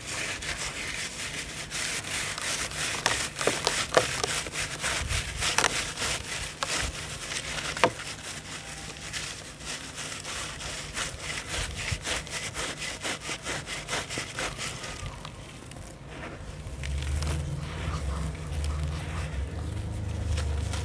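Wet, gritty charcoal sand ball squeezed and crumbled by hand in a tub of water: dense crunching and rubbing with many small crackles, easing off after about fifteen seconds. A low rumble comes in for the last few seconds.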